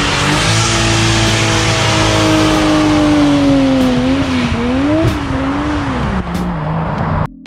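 Toyota Supra mk4's inline-six engine held at high revs during a burnout, over the squeal and scrub of the spinning rear tyres. The revs waver and dip about four to five seconds in, then fall away, and the sound cuts off suddenly near the end.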